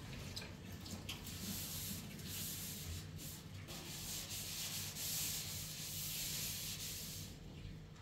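A steady hiss that fades out near the end, with a faint low hum beneath it.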